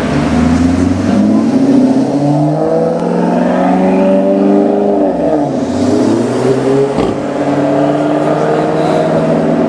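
Maserati GranTurismo's V8 with an Fi aftermarket exhaust accelerating, its note climbing steadily for about five seconds. It drops sharply just past halfway, as at a gear change or lift-off, then climbs again and holds.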